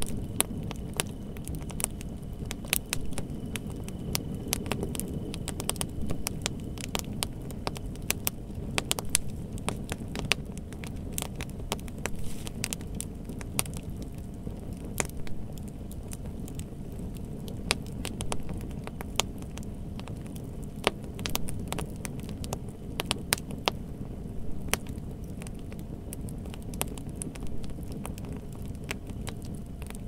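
Wood fire burning: a steady low rush from the flames, with frequent sharp crackles and pops at irregular intervals.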